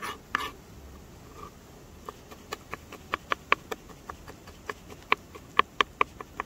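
Metal spoon clinking against a cooking pot while onions are stirred: a couple of knocks at first, then a quick, uneven run of sharp clicks, several a second.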